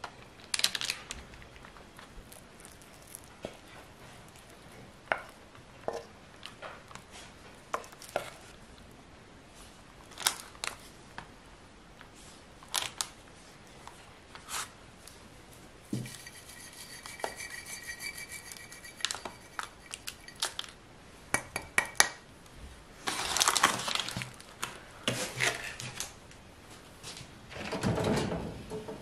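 Thick banana bread batter scraped from a bowl into a parchment-lined loaf tin with a spatula: scattered clicks and knocks of the spatula against the bowl and tin, with crinkling of the baking parchment. Near the end the oven door is opened.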